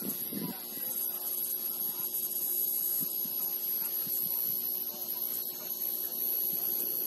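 A steady electrical hum with a constant high-pitched whine over it.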